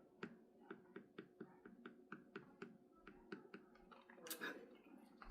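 Faint finger snapping in a steady rhythm, about four snaps a second, with a brief louder rustle about four seconds in.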